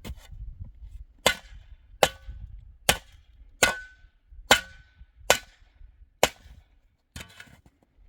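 Nine sharp blows, roughly one every 0.8 s, struck hard and evenly, several followed by a brief ringing tone, like a hammer or axe working.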